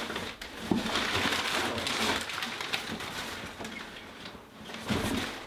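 Brown kraft packing paper rustling and crinkling as it is pulled out of a cardboard shipping box. It is heaviest over the first three seconds, dies down around four seconds in, and picks up again briefly near the end.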